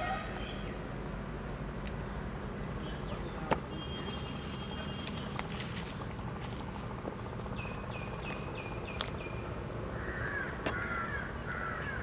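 Birds calling over a steady low background hiss outdoors: short high rising chirps now and then, a quick run of repeated notes in the middle, and a cluster of harsher warbling calls near the end. A couple of sharp clicks stand out.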